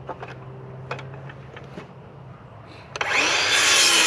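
A few light knocks and clicks of boards and tools being handled, then about three seconds in a circular saw whines up to speed and starts cutting through a rough-sawn 2x4.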